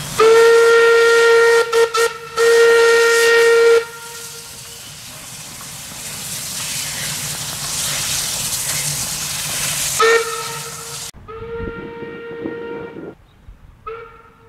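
Steam whistle of narrow-gauge steam locomotive NM25 blowing a long blast, broken by two short gaps, followed by a steady hiss of steam that swells for several seconds. Then a short toot, a second blast of about two seconds, and a brief toot near the end.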